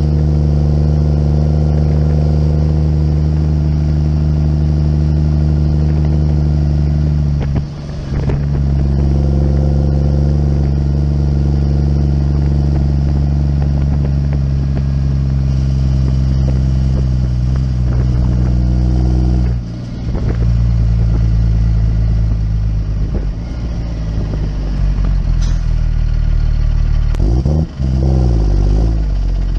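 Muck cart (small site dumper) engine running steadily under load as it drives along. The engine note drops briefly about a quarter of the way in and again about two-thirds of the way through, then falls and rises near the end as the cart slows.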